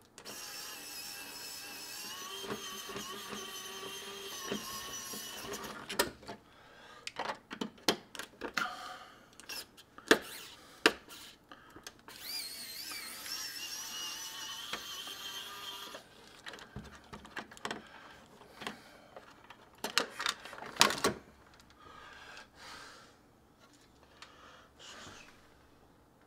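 Small electric screwdriver running in two spells of a few seconds each, its motor whine shifting in pitch as it backs out thermostat base-plate screws. Sharp clicks and knocks from the plastic plate and screws come between the spells.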